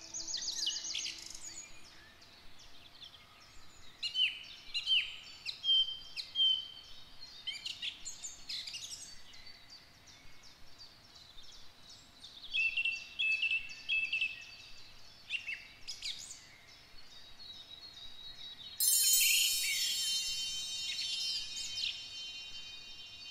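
Woodland birdsong: several songbirds chirping and trilling in short phrases, with soft steady music fading out in the first couple of seconds. A louder burst of high ringing tones comes in about three-quarters of the way through.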